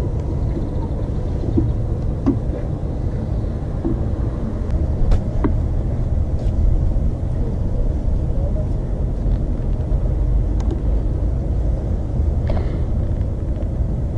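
Steady low rumble of a moving vehicle, with a few faint clicks and knocks scattered through it.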